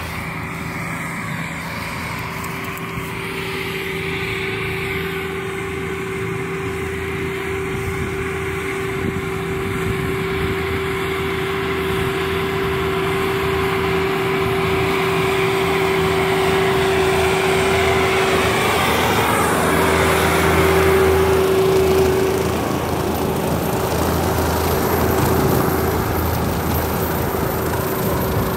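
Case IH Farmall 100 tractor running under load, driving a rear-mounted PTO rotary mower (slasher) that is cutting rice stubble. It grows steadily louder as it approaches, with a steady whine over the engine hum, and is loudest about two-thirds of the way through as it passes close by.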